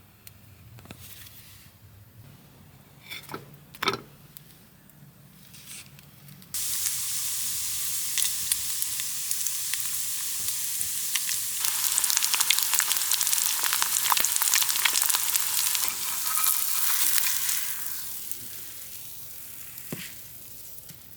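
Food sizzling and crackling in a hot frying pan. A few light knocks come first, then the sizzle starts suddenly about six seconds in, gets louder and fuller a few seconds later, and dies away near the end.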